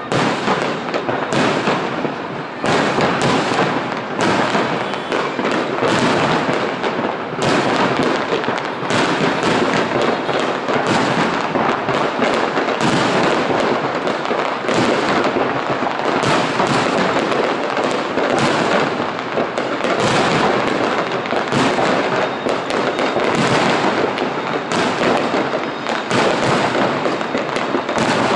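Aerial fireworks display: a loud, dense, unbroken barrage of bangs and crackling, with bursts overlapping one another.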